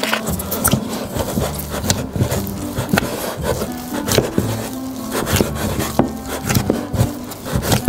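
Hands kneading soft beignet dough in an enamel bowl: irregular squishing, rubbing and knocking as the dough is pressed and the bowl shifts on the wooden table. Background music plays underneath.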